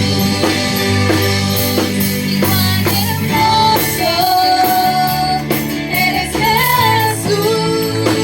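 A sung worship song with band accompaniment: a voice holding long notes over bass and a steady drum beat.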